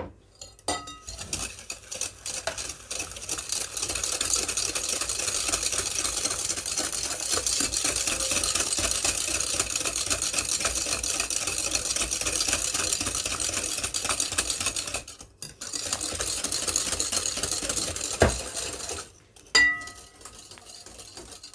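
Wire balloon whisk beating eggs and sugar in a glass mixing bowl: fast, steady clattering of the wires against the glass. It breaks off briefly about fifteen seconds in, stops about two seconds before the end, and is followed by a couple of ringing clinks on glass.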